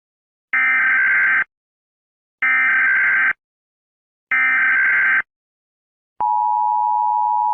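Emergency Alert System SAME header: three identical short bursts of warbling digital data tones, each just under a second long with about a second between them. About six seconds in, the steady two-tone EAS attention signal begins.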